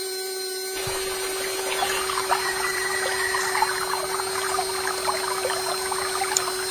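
Small electric motor of a miniature homemade water pump running with a steady whine. About a second in, splashing, trickling water joins it as the pump delivers water out of its spout into a channel.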